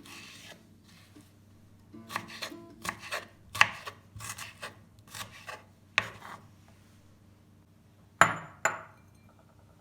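Kitchen utensil handling: a run of quick knocks and scrapes, then two sharp clinks with a brief ring, about half a second apart, near the end.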